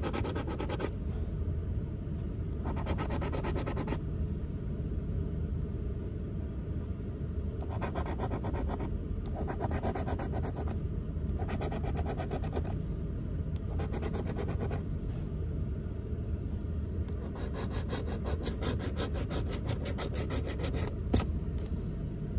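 A coin scratching the coating off a lottery scratch-off ticket, in several bursts of rapid rasping strokes with short pauses between them, the longest near the end. A steady low rumble runs underneath.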